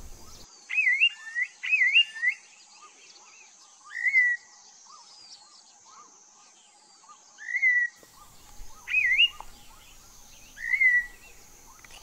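Mount Victoria babax calling: six loud whistled phrases spaced a second or more apart. Some have a wavering twist and the rest are short rising-then-falling slurs. A steady high insect trill runs underneath.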